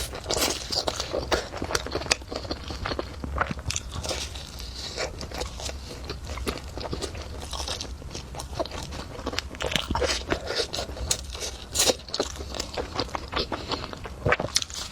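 A person eating close to the microphone: repeated biting and chewing with many irregular small crunching clicks, over a steady low hum.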